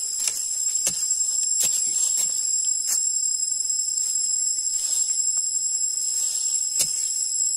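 A steady high-pitched insect chorus, with a hand tool striking and scraping into sandy soil in short irregular blows, several of them.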